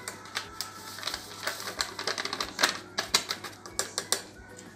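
Paper sachet of powdered whipped-cream mix crinkling and being shaken and tapped as the powder is emptied into a glass bowl: a run of irregular light clicks.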